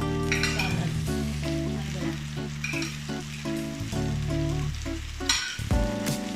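Samgyeopsal (sliced pork belly) sizzling and crackling as it fries in a hot pan, with background music playing underneath.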